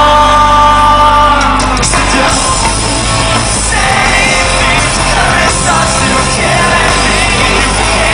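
Live rock band playing loud, with grand piano, drums, electric guitar and singing, heard from within the crowd. A held chord gives way to a busier passage about two seconds in.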